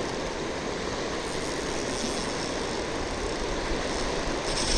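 Steady rushing of the Loire's current running over the shallows, an even noise with no rhythm.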